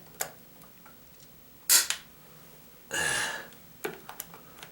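Small metal clicks and knocks from a door strike plate and screw being worked with a screwdriver at the door jamb. There is one loud sharp snap near the middle, a short scrape about a second later, and a few lighter clicks near the end.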